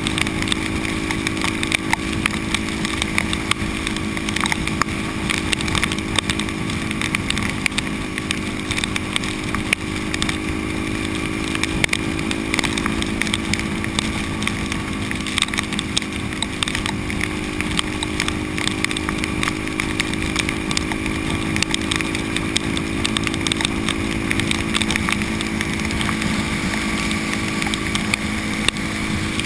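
Supermoto motorcycle engine running at a steady highway cruise, its pitch holding almost constant, mixed with wind rush and rain spattering on the camera.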